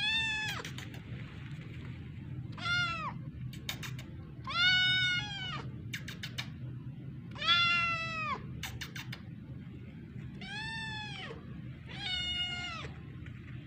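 Six high kitten meows, a second or two apart, each rising and then falling in pitch, with a few short clicks between them over a steady low hum.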